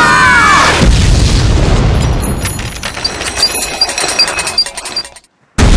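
Cartoon jet crash-landing: a high wailing glide, then a loud crash about a second in that fades into rattling, with a run of small clinks from the wreckage. After a brief moment of silence, a loud boom hits just before the end.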